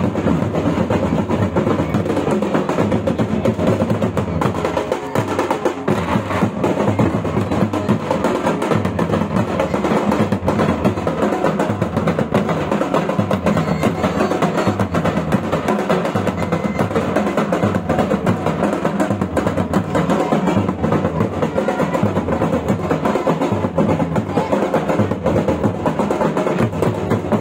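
Folk drumming: a double-headed barrel drum and a brass-shelled drum beaten together in a steady, unbroken rhythm.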